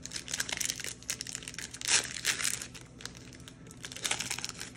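Plastic foil wrapper of a trading card pack crinkling and crackling as it is torn open and handled, in quick irregular crackles, loudest about two seconds in and again near the end.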